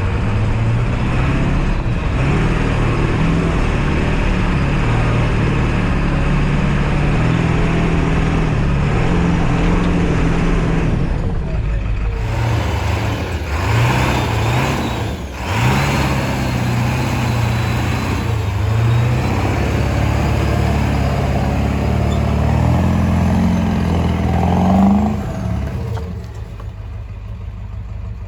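Ford Bronco's Powerstroke diesel engine working on a trail, its note stepping up and down with the throttle. The sound drops quieter near the end.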